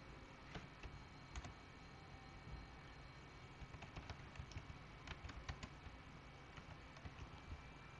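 Computer keyboard being typed on in short irregular bursts of faint key clicks, over a low steady hum.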